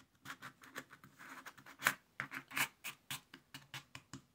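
Stiff paper and cardboard scraping and rustling in many short strokes: a sheet-music-covered cardboard disc being pushed down inside a woven paper cylinder to form its bottom.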